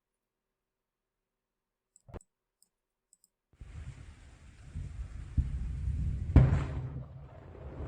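Near silence broken by a single small click, then a low rumble with wind-like noise starts about halfway through and grows louder, with one sharp thud near the end.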